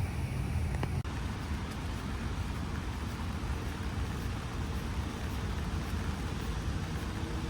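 Steady low rumble of vehicle and traffic noise, with a brief break about a second in.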